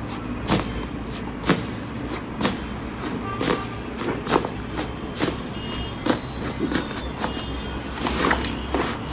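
Slime being pressed and poked, giving sharp sticky clicks and pops about once a second over a steady low hum.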